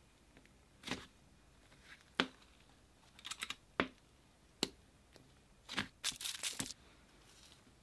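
Thick, fluffy slime being pressed and squished by fingers, giving irregular sharp pops and crackles as trapped air breaks out, with a denser run of crackling late on.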